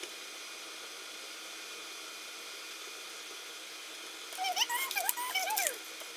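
A steady hiss, then about four seconds in a dog whines in high, wavering, rising-and-falling tones for about a second and a half.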